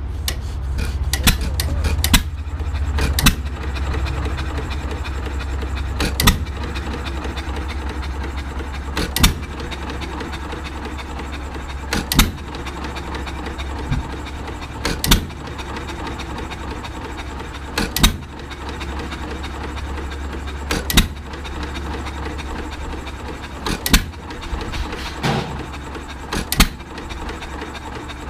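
Antique single-cylinder hit-and-miss stationary gas engine idling. It fires with a sharp bang about every three seconds, over a steady low rumble.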